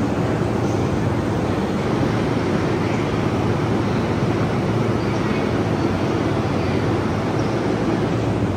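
JR East E235 series commuter train standing at the platform with its doors open, its onboard equipment humming steadily amid station noise.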